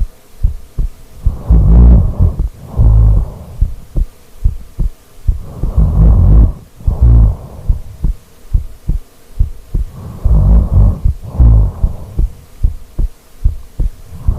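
A person snoring loudly: pairs of snores about a second apart, a pair roughly every four seconds, three pairs in all, with faint clicking in the pauses between.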